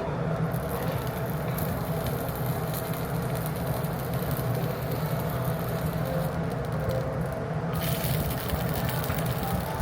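Beef for gyukatsu sizzling on a small tabletop grill, a steady hiss over a constant low hum; the hiss grows brighter about eight seconds in.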